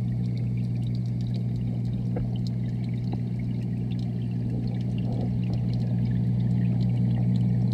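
Steady low hum and rushing water heard underwater in an indoor fish pond, with faint scattered clicks.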